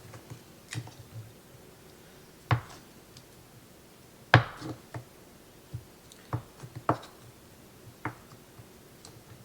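Kitchen knife chopping sliced provolone cheese: a dozen or so irregular knocks of the blade, the loudest about four and a half seconds in.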